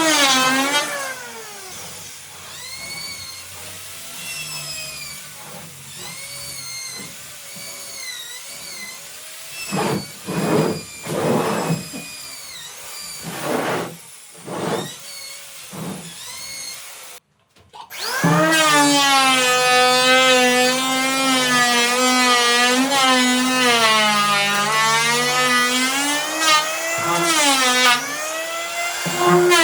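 Electric woodworking power tool running, its motor pitch wavering up and down as it cuts into wood. It is quieter with short bursts in the middle, drops out briefly, then runs loud and steady again.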